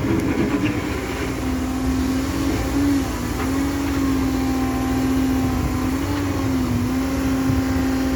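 Caterpillar M315F wheeled excavator's diesel engine running steadily under working load, with a held droning tone that dips slightly in pitch twice.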